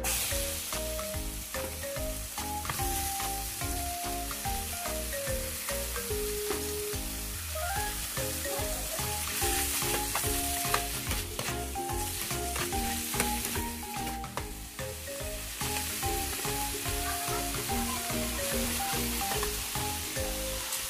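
Raw duck pieces sizzling in a hot non-stick frying pan, with the sizzle starting suddenly as the meat goes in, while they are stirred with a metal ladle. Background music with a melody plays throughout.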